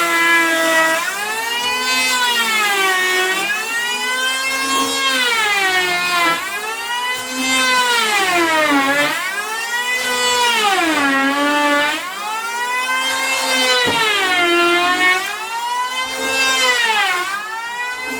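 Handheld electric planer running through repeated passes over a weathered, damp timber board, its motor pitch sagging under the cut and rising again about every two seconds.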